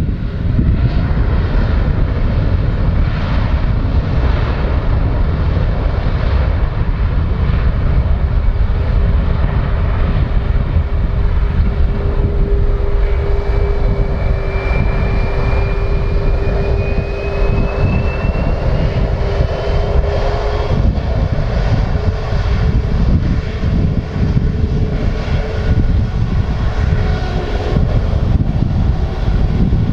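Jet engines of an Airbus A350, Rolls-Royce Trent XWBs, running as the airliner taxis: a steady loud rumble, with a thin whine that rises in pitch around the middle.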